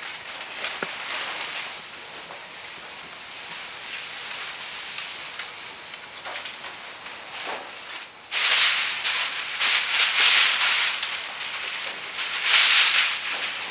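Paper slip sheets and vinyl top material rustling and crinkling as they are handled over a contact-cemented car roof. Faint at first, then loud, irregular crackly rustling from about eight seconds in.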